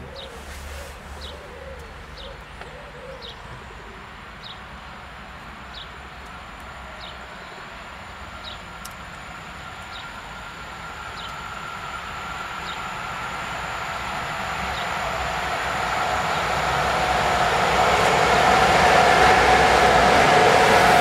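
An electric locomotive and its passenger coaches approach at speed. The rushing rail noise grows steadily louder through the second half and carries a steady whine. Before that, a bird chirps about once a second, and a pigeon coos at the start.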